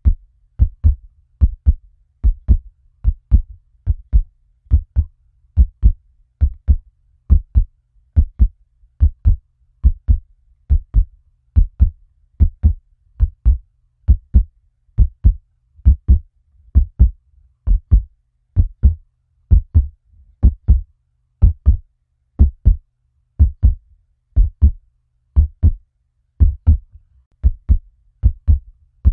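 Heartbeat sound effect: deep double thumps, lub-dub, repeating steadily at about seventy beats a minute over a faint low hum.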